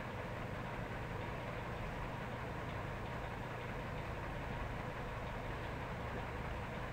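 A steady low hum under an even hiss, with no distinct events.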